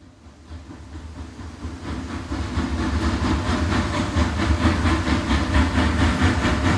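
Locomotive approaching and growing louder, with a low rumble, a hiss and an even rhythmic beat about four times a second.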